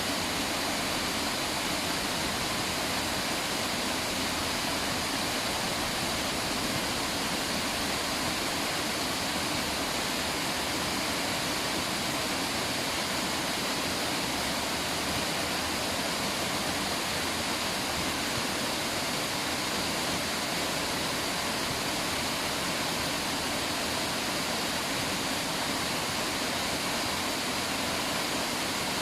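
River water rushing steadily, a continuous even hiss of flowing water.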